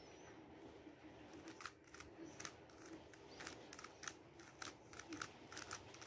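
A 3x3 Rubik's cube being turned by hand: faint plastic clicks of its layers snapping round, coming in quick irregular runs from about a second and a half in.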